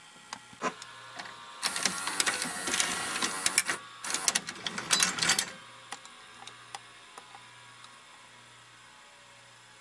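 Exposed VCR tape mechanism whirring and clicking busily for about four seconds, then dropping to a faint low hum.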